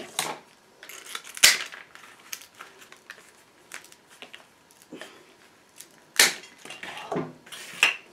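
Woody stems of a hand-tied foliage bouquet being cut straight: a few sharp snips, the loudest about a second and a half in, with leaves and twigs rustling between.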